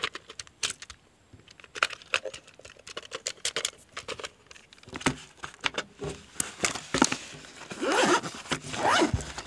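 Drone packaging and parts being handled: irregular plastic clicks and knocks with crinkling and rustling as items are taken out and moved about.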